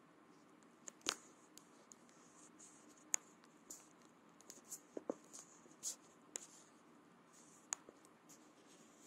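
Near silence broken by faint scattered clicks and soft scratchy rustles.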